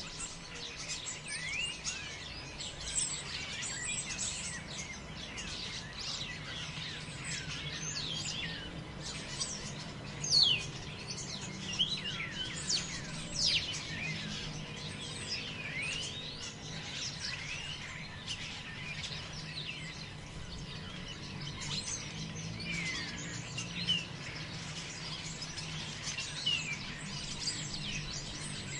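A chorus of many birds chirping and calling over one another in quick rising and falling whistled notes, a few louder calls about ten to fourteen seconds in, over a steady low background hum.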